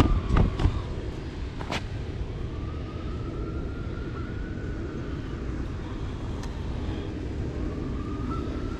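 A distant siren wailing, its pitch rising and falling slowly in long sweeps, over a steady low rumble. A few sharp knocks in the first two seconds.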